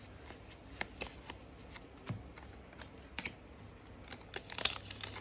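Yu-Gi-Oh! trading cards being handled and flipped through: scattered soft flicks and clicks of card against card, the loudest cluster near the end.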